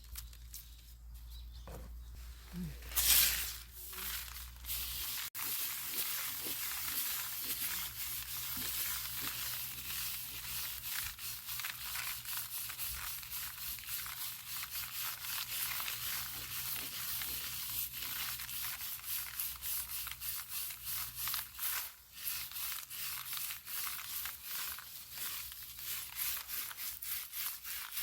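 Dried perilla plants and seeds being threshed: a dry, rustling rasp in many quick repeated strokes, with one louder swish about three seconds in.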